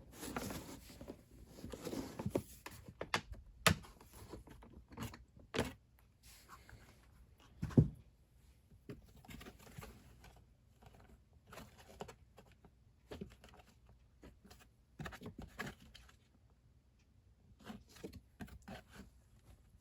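Plastic parts of a box fan being handled and pried apart by hand: irregular clicks, knocks and scrapes, with one louder knock about eight seconds in.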